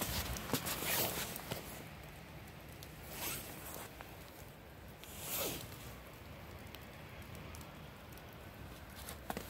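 Footsteps crunching in fresh snow: a flurry of steps at first, then slowing to a few single soft crunches about two seconds apart.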